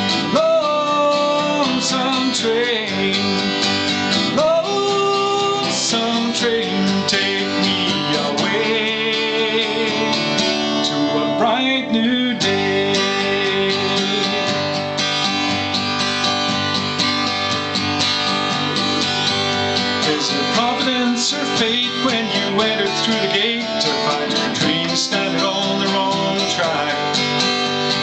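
Steel-string acoustic guitar strummed and picked in an instrumental passage of a song.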